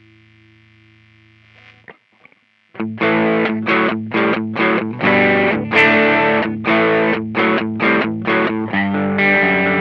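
Electric guitar played through an Ibanez Tube Screamer overdrive pedal. A held chord rings and fades, there is a short pause with a small click of string noise, and then about three seconds in a distorted riff of struck chords starts.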